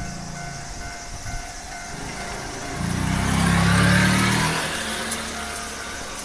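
Keio Line electric train passing through a level crossing: its rumble swells from nearly three seconds in, peaks around four seconds and then fades. Under it, the crossing's warning bell keeps ringing in a repeating pattern.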